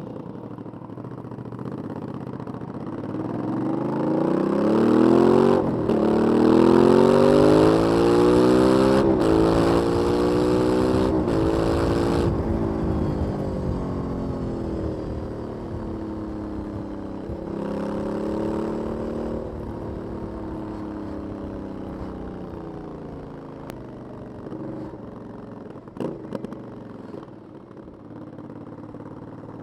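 Aprilia 900 V-twin on its stock exhaust, accelerating hard up through the gears with brief breaks at each shift. It then eases off, pulls again briefly, and settles back to a lower, steadier run.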